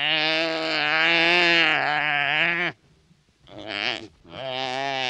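Animal bleating: one long, wavering bleat of nearly three seconds, then a short call about a second later, and another long bleat starting just before the end.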